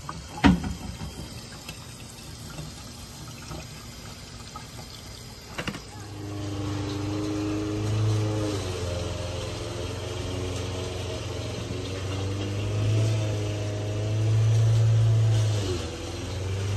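A sharp click about half a second in. From about six seconds a steady low mechanical hum starts, with wavering tones above it that swell a few times.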